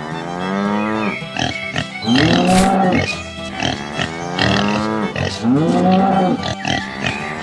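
Background music looping a short phrase about every four seconds, each phrase with a pitched call that rises and falls.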